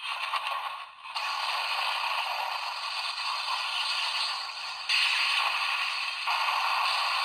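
Electronic sound effect from a Kamen Rider Gaim CSM Lockseed toy played through its small built-in speaker: a noisy, hiss-like effect with no low end. It dips briefly about a second in and jumps louder near five seconds and again just after six.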